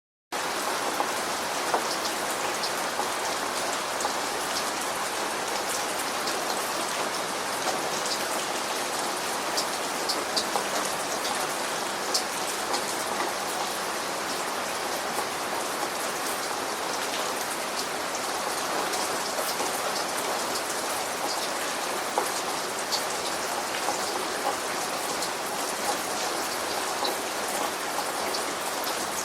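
Steady rain falling, with a constant hiss and many small drop ticks.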